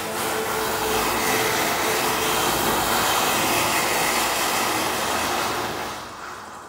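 Fountain firework spraying sparks with a loud, steady hiss that dies away near the end.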